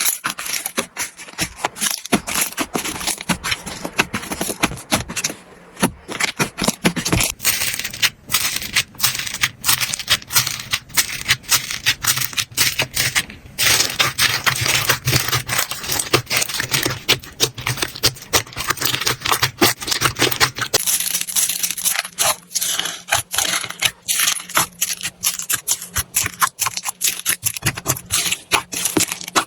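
Slime being squished, poked and stretched by hand, giving a dense run of rapid clicking, crackling pops. The texture changes abruptly several times, as one slime gives way to another.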